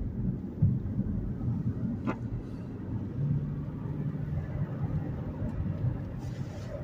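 Steady low rumble of road and engine noise inside a moving car's cabin, with one short click about two seconds in.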